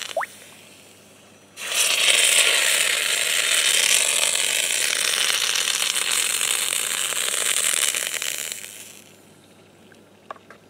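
Hot steel casting flask holding still-hot aluminium plunged into a bucket of water: about a second and a half in, a sudden loud rush of hissing, crackling steam and boiling starts, holds for several seconds and dies away.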